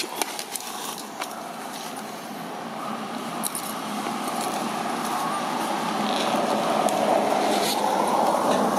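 Steady noise of a road vehicle going by, growing gradually louder throughout, with a few faint light clicks over it.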